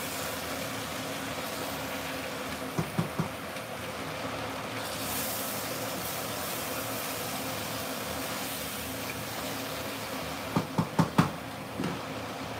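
Chicken curry sizzling steadily in a stainless steel pot, with a wooden spoon knocking against the pot in a quick cluster of three about three seconds in and a run of four or five near the end.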